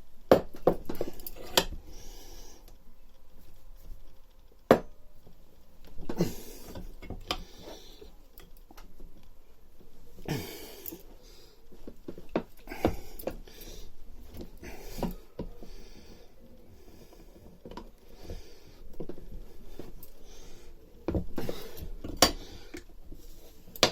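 Roller bearing being pressed into a Honda 536 roller mower gearbox housing with a bench vise and a washer: irregular sharp metallic clicks and knocks as the bearing forces its way in, with some rubbing and handling noise between them.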